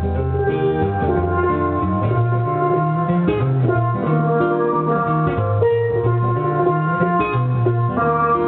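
Steelpan played live, a melody of ringing pitched notes over a moving bass line, with a guitar accompanying.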